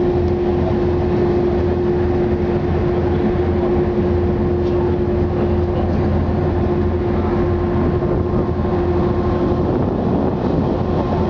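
A car ferry's engines and machinery droning steadily while under way: a constant low rumble with one steady tone held above it.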